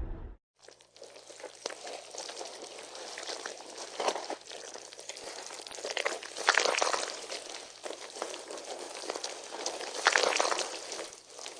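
A loud low rumble cuts off just after the start. Then comes a steady liquid noise full of small crackles that swells three times, about four, six and a half and ten seconds in.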